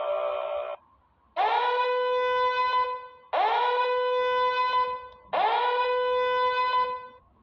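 Three long horn blasts on the same note, each swooping up into a steady tone and held about a second and a half, with short gaps between. Just before them, a dense droning sound cuts off.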